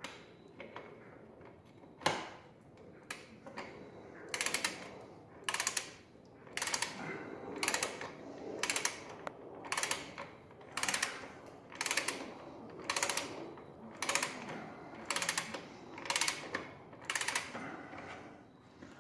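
Ratchet wrench with a 17 mm socket tightening a motorcycle's rear axle nut: a short run of ratchet clicks on each back-stroke, repeating about once a second.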